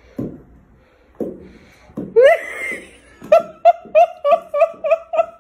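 A few soft thumps, then a rising high-pitched cry, then a person giggling in a quick run of short high-pitched bursts, about four a second.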